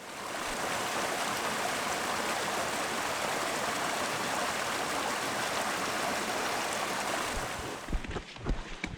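Steady rush of a mountain stream. Near the end it gives way to a few footsteps on the trail.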